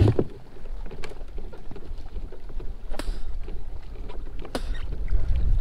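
Wind buffeting the microphone and water lapping against a kayak's hull, with a low rumble that grows near the end. A few sharp clicks, about three, stand out above it.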